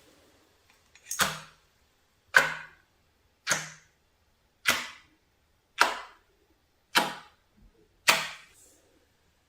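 Homemade soap slime being pressed by hand, making seven short squelching pops about a second apart.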